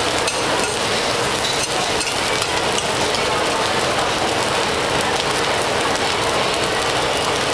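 Egg fried rice sizzling steadily on a hot steel teppanyaki griddle, with a few sharp clicks of metal spatulas on the steel in the first couple of seconds.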